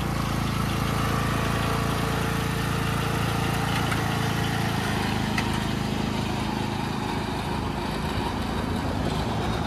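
Poulan riding lawn mower's engine running steadily as the mower drives off along the pavement, growing a little fainter near the end as it moves away.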